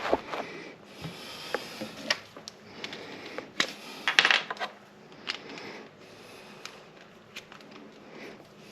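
Small metallic clicks, clinks and rustling from hand tools and electrical wire being handled while a ground wire is tied in at a switch box, in irregular bursts with a cluster about four seconds in.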